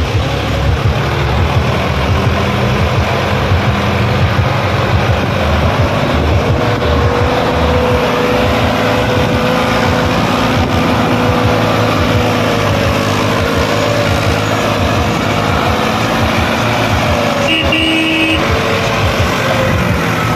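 Sonalika DI 35 tractor's diesel engine pulling hard under the weight of a fully loaded trolley, with the front wheels reared up. It runs steadily throughout, and a short beep sounds once near the end.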